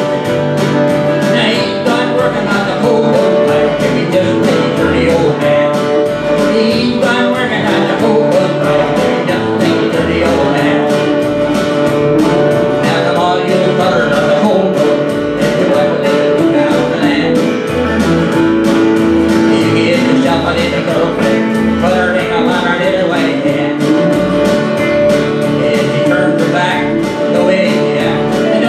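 A man singing a country song while playing acoustic guitar.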